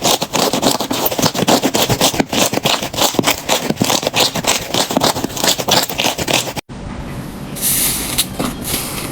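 Slime being pressed and squeezed with dense crackling and popping. About two-thirds of the way through it cuts to a smoother, less crackly handling sound.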